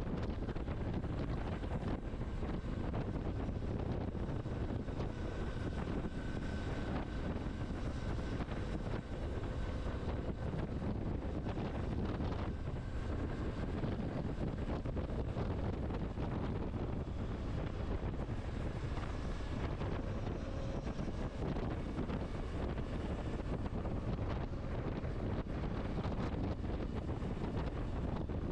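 Steady wind rush buffeting the microphone on a moving motorcycle, with the bike running underneath and faint held tones coming and going.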